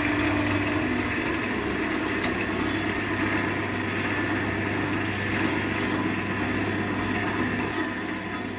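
Wood lathe running steadily, spinning a turned wooden gear knob as linseed oil is put on it; the motor hum eases slightly near the end.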